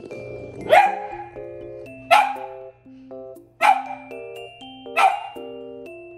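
A mini Australian shepherd puppy barking four times, evenly spaced about a second and a half apart, over background music.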